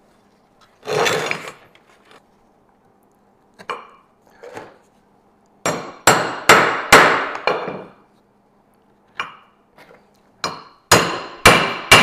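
Hammer tapping a metal punch to mark hole positions, in a few short groups of sharp taps, each with a brief ring.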